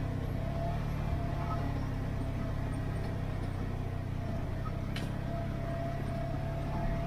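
Polaris General side-by-side UTV engine running at a steady, even speed as it drives along, a low drone with a faint steady whine above it. A single brief click about five seconds in.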